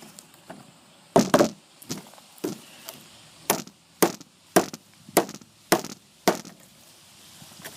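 Small hatchet head of a Sheffield 14-in-1 multi-tool chopping a thick, dry branch: about ten sharp strikes, roughly two a second. The strikes stop a little over six seconds in.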